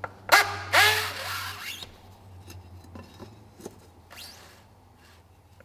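The oil filter housing cap squeaks loudly twice in quick succession as a 36 mm wrench turns it loose. Faint rubbing and clicks follow, with a shorter rising squeak about four seconds in, over a low steady hum.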